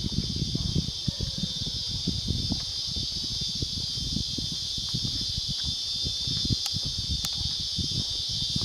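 Steady, shrill insect chorus sounding throughout, with irregular low rumbling and thuds underneath.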